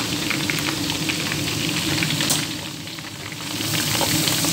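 A large meatball and a piece of tofu deep-frying in a pot of hot oil, the oil sizzling with many small crackling pops. There is a sharp click a little past halfway, and the sizzle fades quieter for about a second before coming back.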